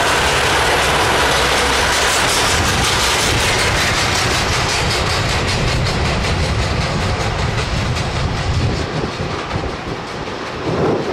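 The four Allison T56 turboprop engines of a Lockheed C-130H Hercules running at takeoff power during the takeoff roll. It is a loud, steady drone with a fast, even propeller beat, and it eases off a little toward the end as the aircraft moves away.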